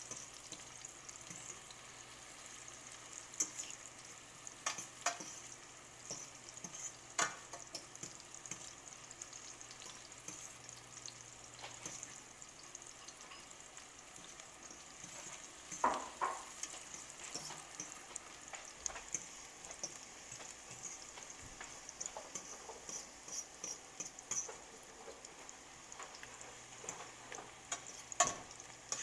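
Sliced onions and green peppers sizzling in oil in a stainless steel pan, a steady frying hiss. A fork stirs them and clicks and scrapes against the pan now and then, loudest about halfway through and near the end.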